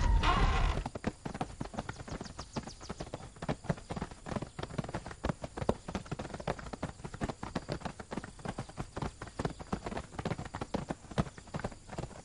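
Hooves of several horses clip-clopping on hard ground in a dense, irregular patter of knocks, as a mounted party sets off through the opened gate. A louder noise stops abruptly within the first second.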